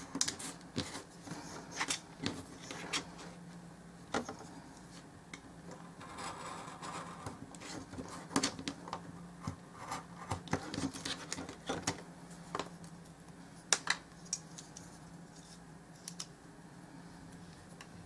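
Craft knife blade cutting and scraping through small paper pieces on a cutting mat: irregular short clicks and scratches, thinning out near the end.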